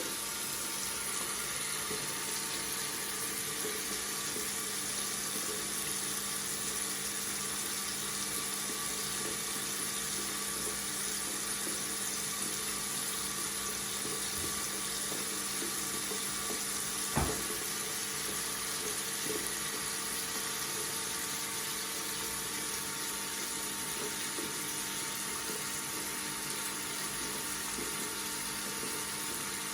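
Tap water running steadily from a faucet into a sink, a continuous even rush with a faint steady hum underneath. There is a single sharp click a little past halfway.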